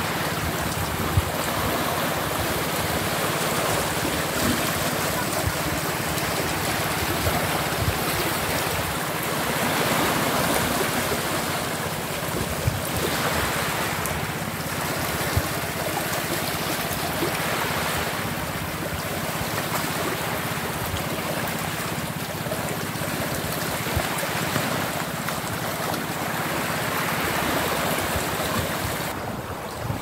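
Small waves lapping and washing over a rocky, pebbly shoreline: a steady wash of water that swells every few seconds, with a faint steady low hum underneath.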